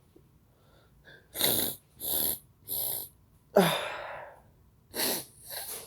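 A man sniffs sharply three times, then sneezes once, loudly, about three and a half seconds in, after snuffing chhinkni sneezing powder. Two more sniffs follow near the end.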